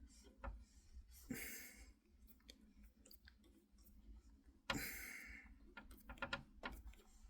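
Faint scattered clicks and taps of small screws and a screwdriver being worked on a PC case's graphics-card bracket, with two short soft swishes about a second in and near the middle.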